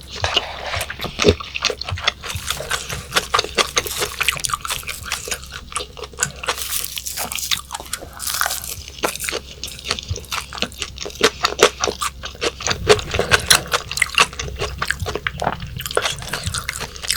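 Close-miked eating: a person chewing and biting raw yellowtail sashimi, with dense wet mouth clicks, smacks and some crunchy bites.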